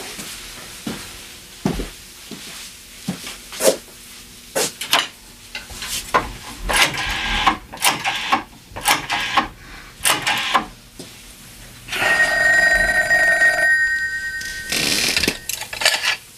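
Telephone bell ringing once for a little under two seconds near the end, the call about to be answered on a candlestick telephone. Before it comes a run of irregular clicks and knocks.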